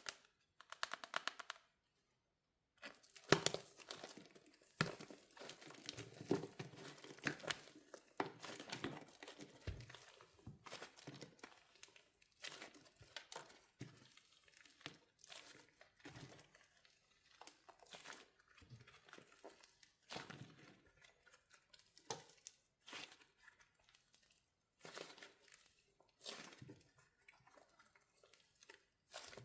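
Hardened wax shell cracking and crinkling as a wax-coated soap squishy is squeezed and crushed by hand. The crackles come thick and fast from about three to ten seconds in, then thin out to scattered snaps.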